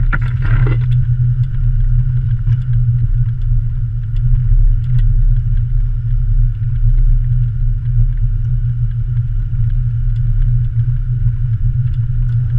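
Land Rover Discovery 300Tdi's four-cylinder turbodiesel engine running as a steady low drone while the vehicle crawls along a rough stony track, with scattered light clicks and clatter.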